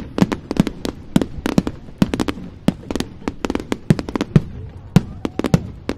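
Fireworks exploding in quick succession: a dense, irregular run of sharp bangs, about four a second.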